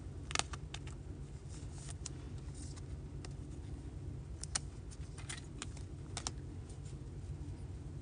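Baseball cards and a clear plastic toploader handled by hand: scattered light clicks and rustles over a low steady hum.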